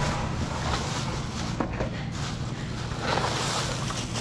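A black plastic bag rustling as it is handled, with a few light knocks, over a steady low hum.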